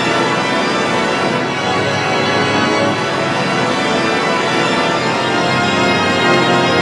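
Organ-like electronic music: a dense chord of many sustained tones held steadily, with no breaks.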